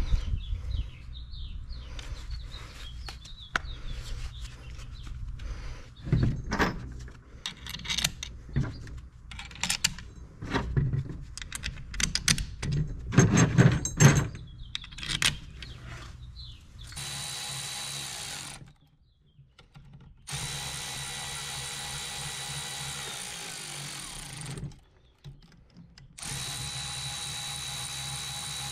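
Clinks and knocks of alternator parts being handled and fitted together, then a cordless electric ratchet running a bolt into the rear housing of a GM one-wire alternator: a short burst followed by two longer runs, each a steady motor whine.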